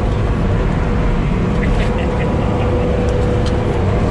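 Sherp amphibious ATV's Kubota diesel engine running steadily under load, heard from inside the cab as the vehicle pushes through pond water, its wheels churning up a foaming wave. A steady whine sits over the deep rumble.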